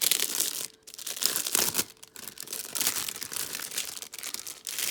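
Wrapping being handled and pulled off a book: irregular crinkling and rustling, with a few brief pauses.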